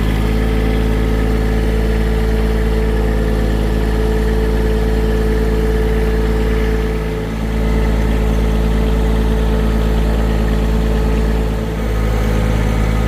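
John Deere 1023E compact tractor's three-cylinder diesel engine running steadily, dipping briefly twice, about seven and about eleven and a half seconds in.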